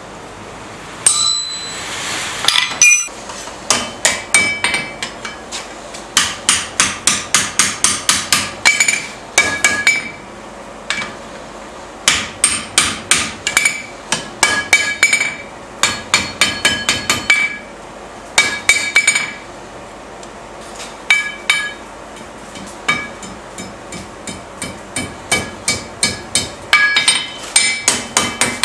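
Hand hammer striking red-hot steel on an anvil, bending a narrow tab over the horn, in quick runs of blows with short pauses between them. Each blow has a sharp metallic ring.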